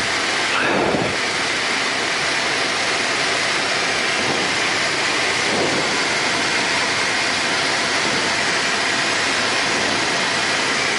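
Steady drone of a light aircraft's engine and propeller heard inside the cockpit, with airflow noise and a faint steady whine, running at cruise power of about 5,000 rpm.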